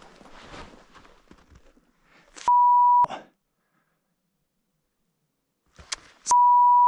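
An edited-in 1 kHz censor bleep sounds for about half a second some two and a half seconds in. The track then goes dead silent, and a second bleep starts near the end. Before the first bleep there is only a faint shuffling noise.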